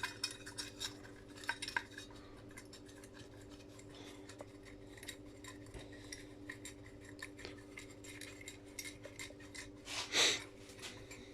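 Small brass light-fitting parts clinking and knocking together as they are handled and taken apart by hand, with one louder clank about ten seconds in, over a faint steady hum.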